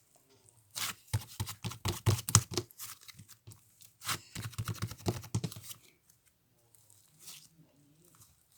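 Gelato-texture slime squished and stretched by hand, giving rapid sticky crackling and popping clicks. They come in two busy runs, about a second in and about four seconds in, then die down to faint handling near the end.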